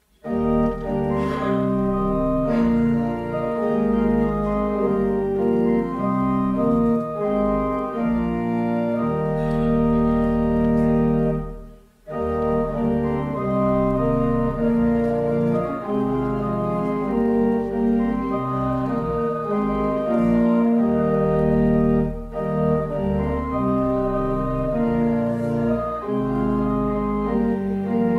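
Church organ playing a hymn in full sustained chords, with a brief break about twelve seconds in before it carries on.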